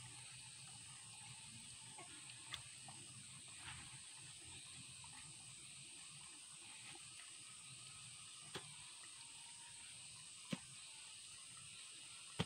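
Quiet outdoor background with a steady high hiss. Hands dig and scoop loose soil around a plant's root ball, giving a few scattered soft knocks and scrapes, the clearest in the second half.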